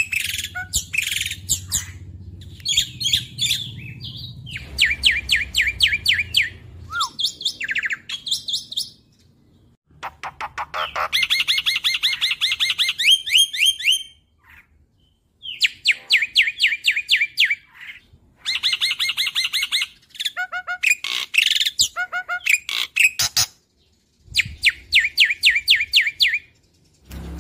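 Black-winged myna (jalak putih) singing: runs of fast, rapidly repeated chattering notes lasting a second or three each, broken by short pauses.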